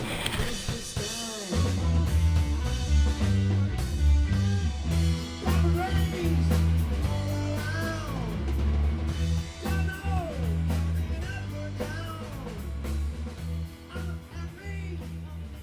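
Background rock music with drums, guitar and a singing voice over a steady beat, fading out near the end.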